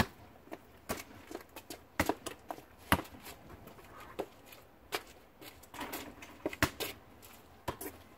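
Basketball bouncing on an asphalt driveway: sharp single knocks at irregular intervals, roughly a second apart, the loudest about three seconds in.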